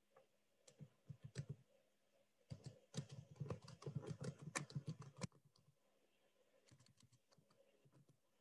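Faint typing on a computer keyboard: a few keystrokes about a second in, a fast run of keystrokes from about two and a half to five seconds, then a few more near seven seconds.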